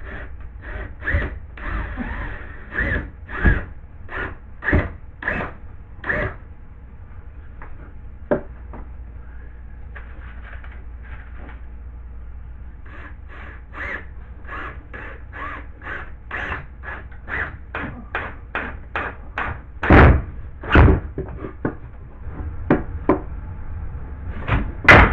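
Repeated knocks and taps, about two a second in two runs, with two heavier thuds about twenty seconds in and more near the end, as cut-out pieces of drywall are worked back into place.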